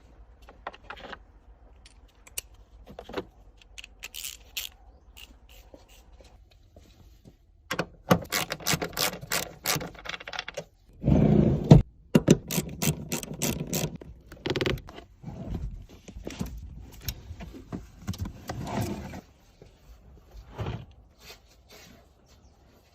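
Irregular handling noises: scraping, light clinks and rustling, busier in the second half, with one louder heavy thump about eleven seconds in.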